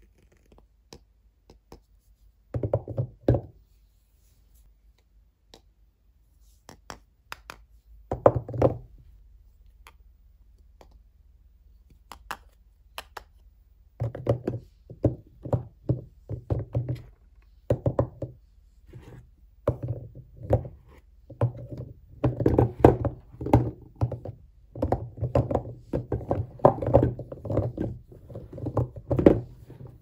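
Hard bars of soap knocking and clacking against one another as hands handle and shift a heap of them. Short runs of knocks come about three seconds in and again around eight seconds, then knocks come in dense clusters through the second half.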